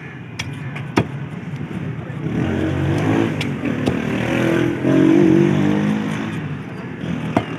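A motor vehicle engine passes close by, swelling to its loudest about five seconds in and then fading. A few sharp knocks of a heavy knife chopping on a wooden block come before and after it.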